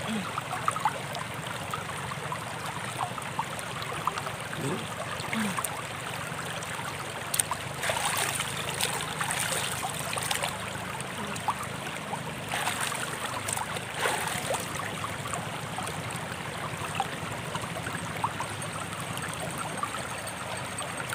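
Shallow rocky river flowing steadily, with a few bursts of splashing as water is scooped and poured over the head partway through.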